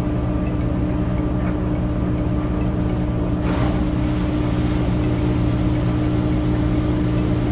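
Steady machine hum with several fixed low tones, unchanging throughout. A brief soft rustle comes about three and a half seconds in.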